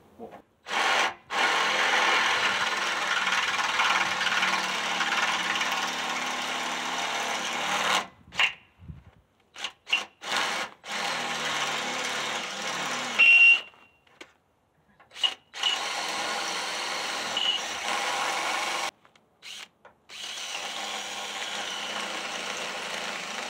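Electric drill boring out half-inch factory rivets on a rear-axle spring hanger with a larger bit. It runs in several long stretches, broken by short stuttering bursts and pauses, with a brief high squeal about 13 seconds in.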